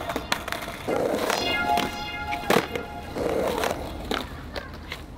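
Skateboard wheels rolling on a rough ground surface, with several sharp board clacks and impacts from tricks, over background music.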